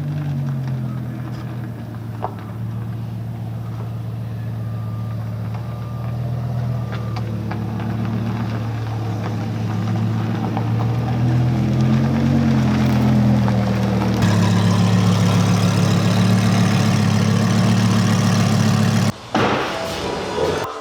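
Lamborghini Huracán's V10 engine idling steadily. Its pitch lifts and falls briefly about twelve seconds in, and it gets louder from about fourteen seconds. The sound cuts out for a moment near the end.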